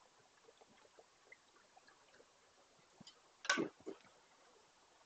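Faint sounds of a man drinking from a plastic water bottle. About three and a half seconds in there is a short, louder clatter as the bottle is put down.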